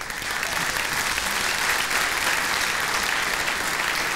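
Audience applauding: dense, even hand-clapping that swells over about the first second, then holds steady.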